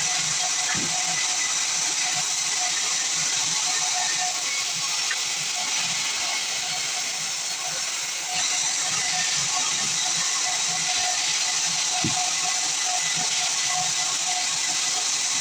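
Band sawmill sawing through a pine log: a steady hissing whir with no breaks.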